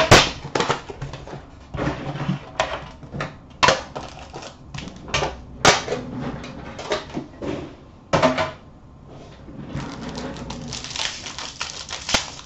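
Hands unboxing an Upper Deck Premier hockey card tin: a run of separate sharp clicks and knocks as the metal tin and its box are handled and set down, then a steadier rustle from about ten seconds in.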